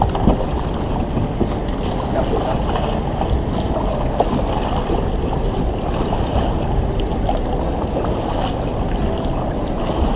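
Jet boat running on the water: a steady engine and water rush at constant loudness.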